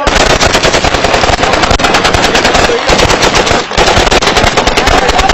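Several automatic rifles firing rapid bursts into the air at once, overlapping into a dense, continuous crackle of shots that dips briefly twice near the middle.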